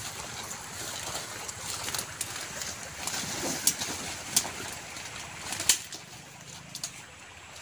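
Leaves and plant stems rustling and snapping as someone pushes on foot through dense, wet undergrowth, with several sharp cracks, the loudest about three-quarters of the way through.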